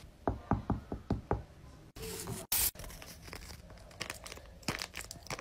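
A quick run of about six light taps, then paper crinkling and rustling as a hand handles a hand-made paper box, with one louder crinkle just after the taps.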